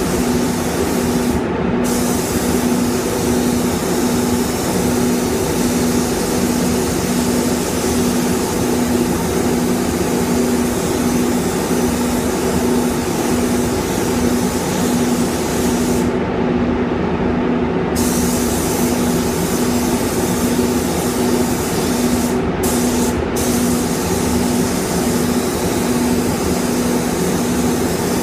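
Gravity-feed paint spray gun hissing steadily as compressed air atomises paint onto the car's bodywork, over a steady low hum. The hiss stops briefly a second or so in, for about two seconds near the middle, and twice for a moment a few seconds later, as the trigger is let go.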